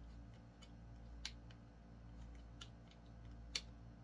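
Faint hand-work on a Thorens TD-160 turntable's tonearm as a screw is tightened down: a few scattered small clicks and ticks, the loudest near the end, over a low steady hum.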